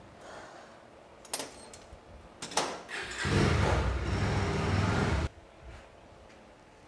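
A couple of metallic clicks, then a loud mechanical running sound for about two seconds that cuts off abruptly.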